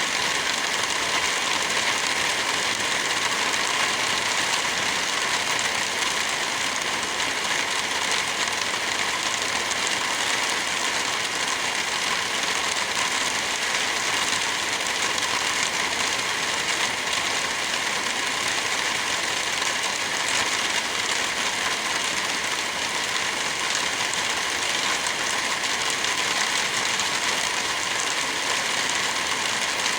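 Heavy rain falling steadily, an even hiss of rain with no letup.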